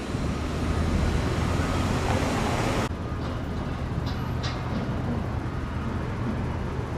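Road and traffic noise while driving: a steady low rumble under a broad tyre-and-wind hiss that falls off sharply about three seconds in.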